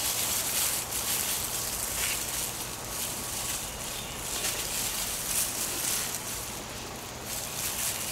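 Hands rustling and scraping through loose potting soil in a container, digging out potatoes.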